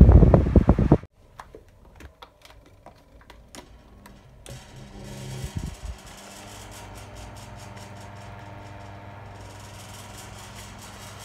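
Vintage electric desk fans. One fan's airflow buffets the microphone for about the first second. After a cut there are a few light clicks, another fan's motor spins up about halfway through, and it then runs with a steady low motor hum.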